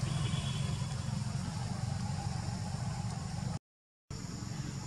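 Steady low rumble of an engine running, cut off by a brief total dropout about three and a half seconds in before it resumes.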